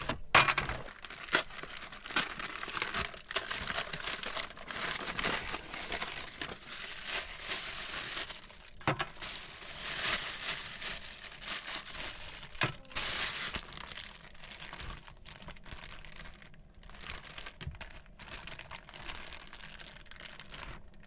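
Plastic food packaging crinkling as it is handled and opened, a dense crackle that eases off after about two-thirds of the way through.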